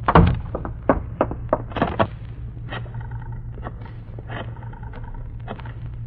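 Radio-drama sound effects of a telephone being picked up and dialled: a knock at the start, then a quick run of clicks that thins out to scattered clicks, over the steady low hum of an old recording.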